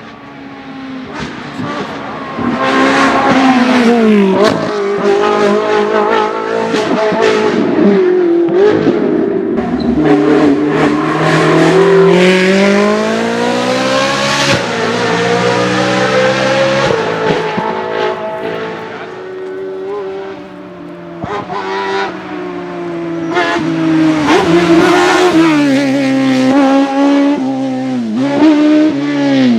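Race car engine running hard up a hillclimb, its pitch repeatedly rising with revs and dropping at gear changes and lifts. It grows loud after a couple of seconds, eases off around two-thirds of the way through, then comes back loud again.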